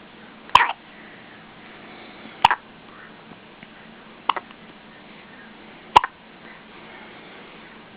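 A baby hiccuping four times, evenly spaced about every two seconds, each hiccup a short sharp catch with a little squeak of voice.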